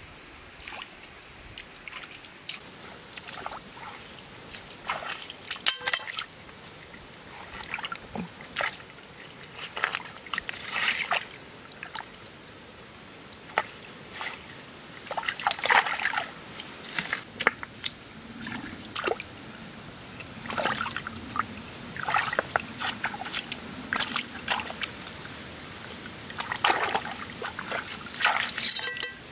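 Hands sloshing and splashing in a shallow rocky stream, feeling around and under stones, in irregular bursts of splashes over a steady trickle of running water.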